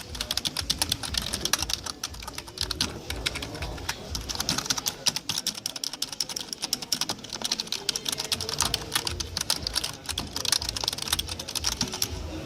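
Fast typing on a Trust Muto silent keyboard: a dense stream of clicks from its small round low-profile, short-travel keys, stopping at the very end.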